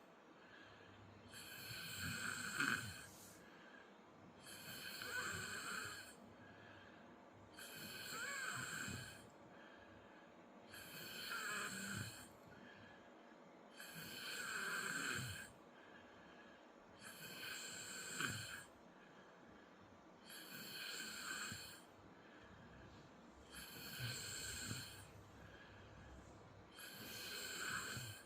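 A person snoring in a steady rhythm: nine snores, one about every three seconds, each lasting a second or so.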